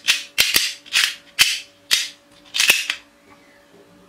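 Sharp cap-gun-like cracks from a plastic toy gun, seven in quick, uneven succession over about three seconds.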